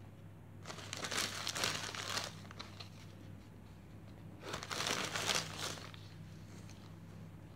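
Hands pressing dry moss down around an orchid in a small plastic pot, giving two bursts of crinkling rustle: one about a second in and one past the middle, each a second or so long.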